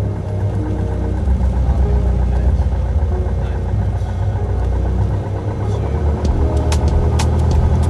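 Light aircraft's piston engine running at low power, heard from inside the cabin, with several sharp clicks near the end.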